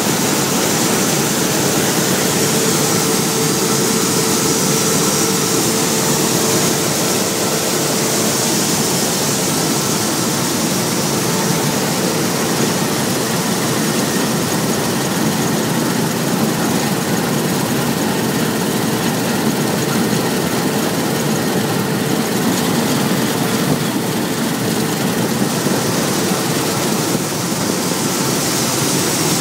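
Claas Lexion 600 combine harvester running steadily while harvesting wheat: a constant machinery drone and rush with a faint steady whine.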